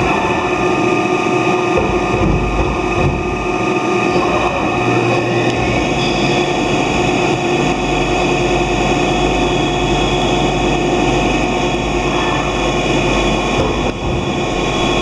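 Mori Seiki CNC lathe running a production cycle: a steady machine hum with several constant tones over it, and a low rumble that shifts in level a few times as the machine moves through the cycle.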